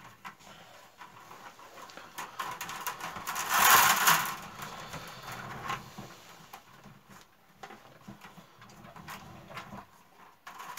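Willow stakes and a split-willow strip clicking, creaking and rustling as the strip is worked by hand around the stakes of a willow basket, with a louder scraping rustle about four seconds in.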